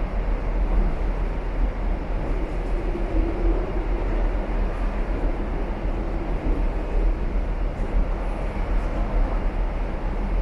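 Steady rumble and hiss inside a Shanghai Metro Line 10 car as the train runs, the deep rumble the strongest part, with no breaks or sudden events.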